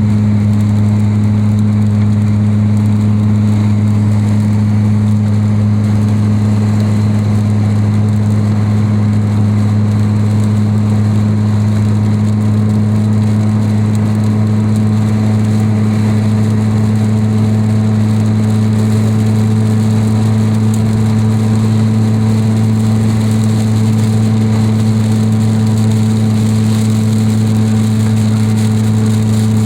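Heavy rain hissing over a loud, steady low hum.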